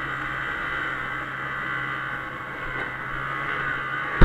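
1996 Arctic Cat Bearcat 340 snowmobile's two-stroke engine running at a steady trail speed, with a sudden loud thump at the very end.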